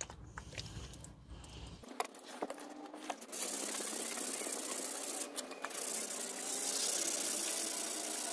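Wet sanding of a Honda CB125E's steel exhaust pipe by hand: sandpaper rubbing on the wetted pipe while water is poured over it from a jug, a steady hiss that gets louder about three seconds in.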